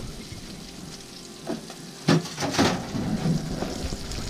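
Breaded perch sizzling in hot oil in a cast-iron skillet, a steady frying hiss. A few sharp knocks cut through about two seconds in.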